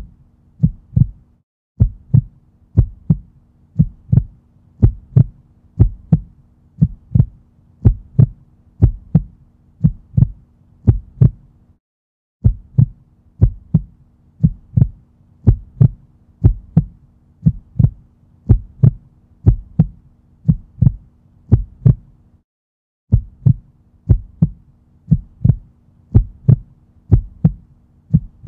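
Heartbeat sound effect: a steady double thump, about one beat a second, over a faint low hum. It drops out briefly twice, once near the middle and once about three quarters of the way through.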